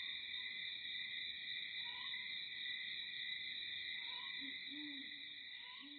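A steady, high-pitched insect chorus of the cicada or katydid kind, with a few faint chirps. From about four and a half seconds in there is a run of short, low calls.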